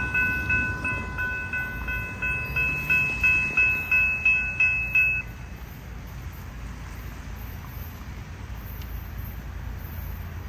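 Railroad grade-crossing warning bell ringing rapidly, about three strikes a second. It cuts off suddenly about five seconds in, leaving a low steady rumble.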